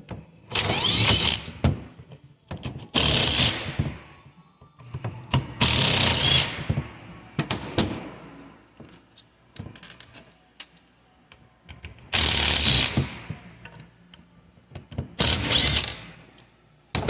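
Power driver run in five short bursts of about a second each, backing fasteners out of a plastic coolant flow control valve housing, with small clicks and handling knocks of the parts between bursts.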